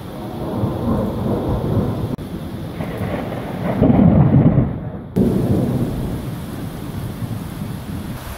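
Thunder rumbling over steady rain, building to its loudest about four to five seconds in, then dropping back to a lower rolling rumble.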